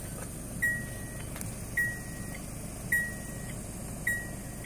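A car's electronic warning chime beeping at an even pace, four single tones a little over a second apart, each held about half a second, over a low steady rumble.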